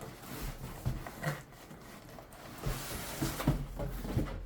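Rustling and light knocks of a gift box and its wrapping being handled and opened.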